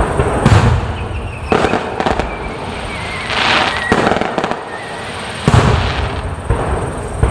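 Aerial fireworks shells bursting: a rapid series of booms, several in the first two seconds and more after, with crackling between them.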